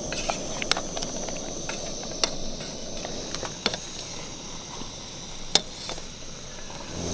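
Pressurised liquid-fuel camp stove burning with a steady hiss, with a few sharp clicks of a spoon against a glass bowl now and then.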